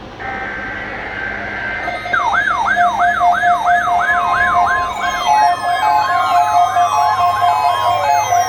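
Electronic siren sounds as used in a homemade emergency alert: faint steady tones over a low hum, then about two seconds in a loud, fast yelp siren starts over a steady tone. From about halfway, several long falling wails are layered on top.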